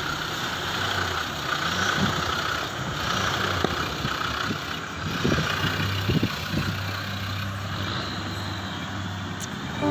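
Land Rover Defender engine running steadily at low revs as the 4x4 crawls over rutted dirt, with a few short knocks and cracks in the middle.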